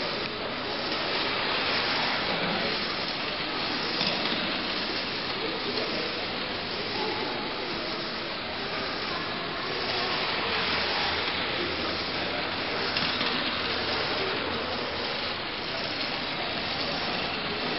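Märklin gauge 0 tinplate toy train running around tinplate track, a steady running noise, with a low hum coming in about ten seconds in as the train comes nearer.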